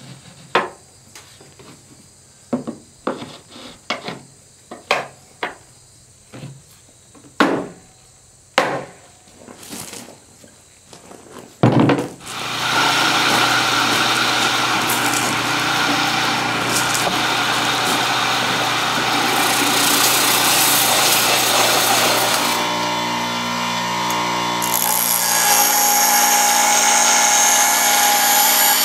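Scattered clicks and knocks as a sanding belt is fitted to a bench belt-and-disc sander. About twelve seconds in, a power tool starts with a bang and runs steadily with a loud rushing noise. Over the last few seconds a DeWalt bench grinder's wheel is grinding the steel blank, a steady motor hum under a high hiss.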